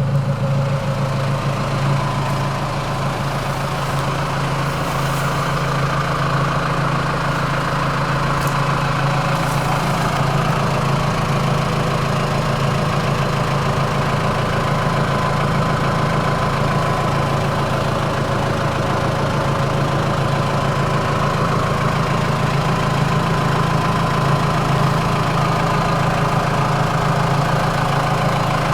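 Tractor engine running at a steady speed, with a thin steady whine above its low hum.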